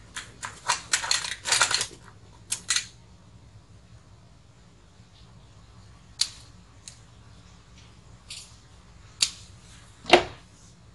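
Hands handling small electronic parts on a workbench: a quick run of scratchy clicks and rustles, then a few separate sharp clicks and taps, the loudest near the end.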